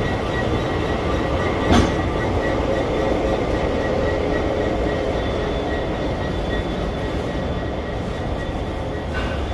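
Freight train rolling past close by: the trailing 82 class diesel locomotive goes by, followed by container wagons, making a steady heavy rumble of wheels on rail with a thin steady high tone over it. A single sharp clank sounds about two seconds in.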